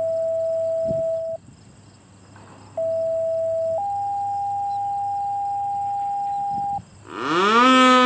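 Radio siren-activation tones: a steady pure tone that stops about a second in, then after a pause a short tone followed by a slightly higher tone held for about three seconds. Near the end the American Signal T-112 electronic siren starts up with a loud rising sweep of several pitches.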